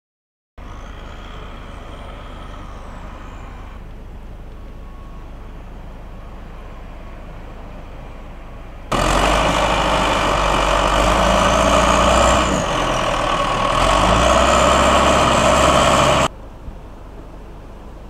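Caterpillar wheel loader's diesel engine running under load as it pushes snow with a plow blade, its pitch dipping briefly and then rising again. It starts abruptly about nine seconds in and stops abruptly about seven seconds later, after a stretch of quieter steady noise.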